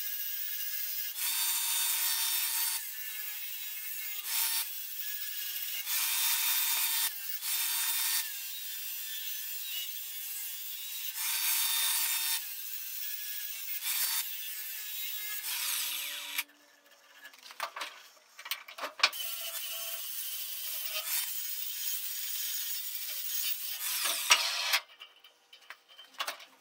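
Angle grinder with a flap disc sharpening the cutting edge of a steel mower blade held in a vise: a steady high grinding hiss that swells in repeated passes as the disc bites the edge. It stops about two-thirds of the way through, a few sharp knocks follow, then it runs again and stops shortly before the end.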